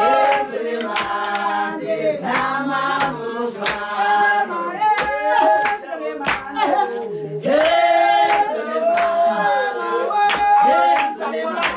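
Traditional Xhosa group singing, several voices together, with rhythmic hand clapping about once a second.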